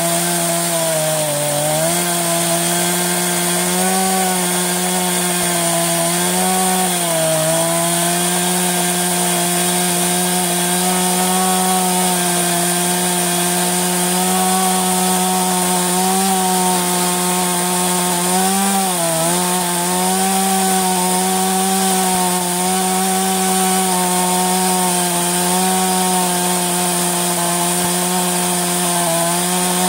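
STIHL MS 192 TC-E two-stroke top-handle chainsaw running at high revs, its chain cutting into a pine burl turning on a lathe. The engine note holds steady but dips briefly a few times as the chain bites into the wood.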